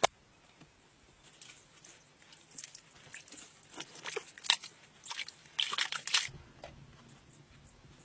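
A sharp click at the start, then dry soil, grit and twigs crunching and scraping in rough bursts for a few seconds as a bent vine is worked into place around the rim of a freshly dug earth pit.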